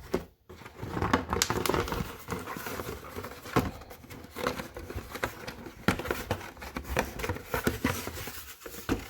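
Plastic packaging crinkling and rustling as a toy remote control is unpacked from its box, with irregular clicks and knocks of handling.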